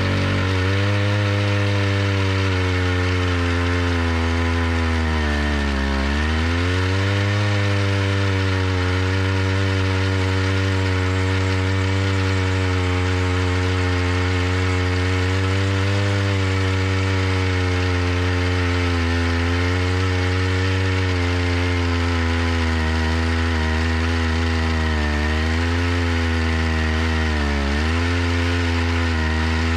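Two-stroke gas engine of a portable rail drill running at high speed while its hole saw cuts a bolt hole through a steel rail. The pitch sags briefly under load about six seconds in and again near the end, then recovers.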